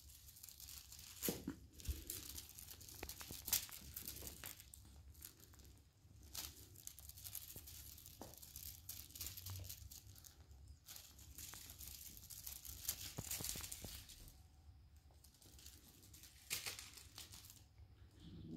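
Maine Coon kittens scuffling over a feather wand toy on a tile floor: faint, irregular rustling with scattered light clicks of claws and paws.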